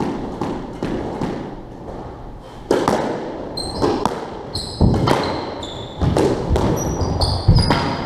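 Squash rally: a rapid string of sharp, echoing knocks as the ball hits the racquets, walls and wooden floor, with short high squeaks of shoes on the floor through the second half.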